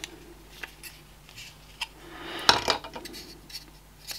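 Small hard-plastic clicks and clatter as a projector's small blower fan is handled and pulled from its plastic bracket, with one louder clatter about halfway through.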